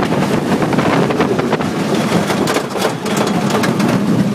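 Colossus roller coaster train running at speed along its track, rattling and clattering with many quick knocks over a steady rumble, with heavy wind buffeting the microphone.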